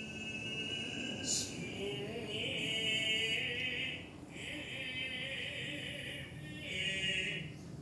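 Noh music: a male voice chanting a slow utai line with a wavering pitch, while a nohkan bamboo flute plays long, high phrases. There is one sharp hand-drum stroke about a second in.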